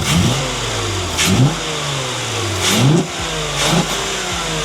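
Volkswagen Atlas engine blipped four times, each rev climbing quickly and then falling back toward idle, with a throaty intake sound through an aftermarket air-intake box.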